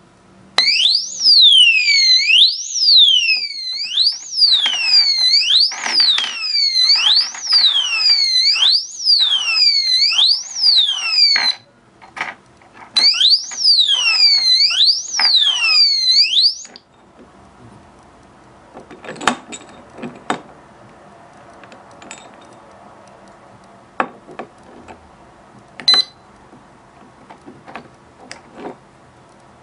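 Built-in 70 dB siren of a stainless steel alarm padlock sounding: a shrill electronic wail that sweeps upward over and over, about one sweep a second. It breaks off briefly, starts again, then cuts off suddenly, followed by a few sharp clicks and knocks.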